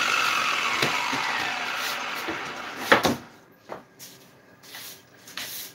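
Electric angle grinder winding down, its whine falling in pitch and fading over about three seconds after grinding staples off a boat seat's wooden board. About three seconds in comes a sharp clack, then a few light knocks.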